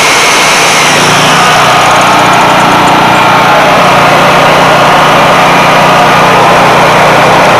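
Honda EB5000 portable generator's single-cylinder engine running steadily, producing power again now that its exciter field has been flashed with a 12-volt battery.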